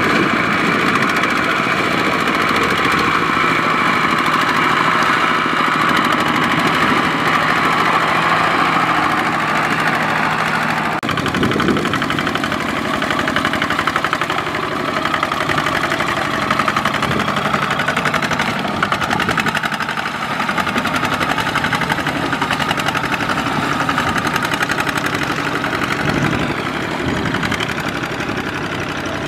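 Single-cylinder diesel engines of Kubota two-wheel tractors chugging steadily under load as they pull rice-laden trailers through deep mud. The engine sound changes abruptly about eleven seconds in, and again near the end, as one tractor gives way to another.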